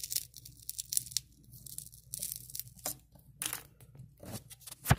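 Screwdriver prying a Traxxas TQ receiver loose from its double-sided tape: irregular scraping and crackling clicks of plastic and tape, with one sharp click near the end.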